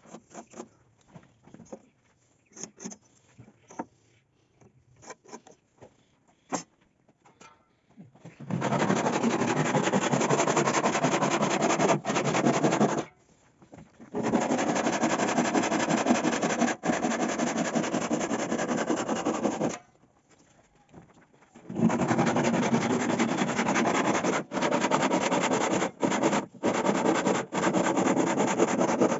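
Handsaw cutting through a wooden door frame in rapid strokes: a steady rasping in three long bouts with short pauses between them. Before the sawing starts there is a quieter stretch of light taps and scratches.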